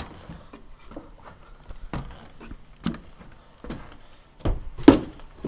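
Footsteps climbing a flight of stairs: a series of thuds about one a second, the loudest near the end.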